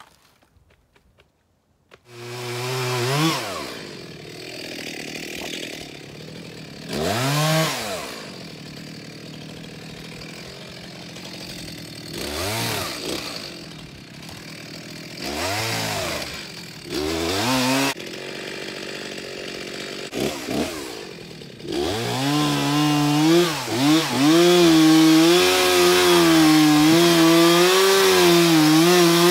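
Stihl chainsaw coming in about two seconds in, revving up and dropping back to idle several times. From about twenty-two seconds it is held at high revs, cutting steadily into the base of a large hemlock trunk.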